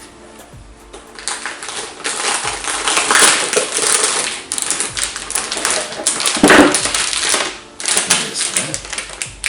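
Cardboard box and packaging being opened and handled: dense rustling, crinkling and small clicks, loudest about six and a half seconds in.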